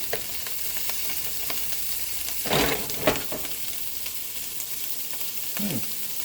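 Wood ear mushrooms frying in a pan on high heat: a steady sizzle with small crackles. A louder rustling burst about two and a half seconds in is followed by a sharp click.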